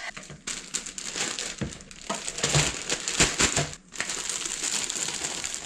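Clear plastic zip-top bag crinkling as sliced peppers and onions are stuffed into it by hand, with a few dull knocks.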